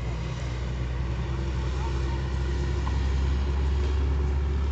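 A steady low rumble, slowly growing louder, with faint distant shouts of players on a football pitch.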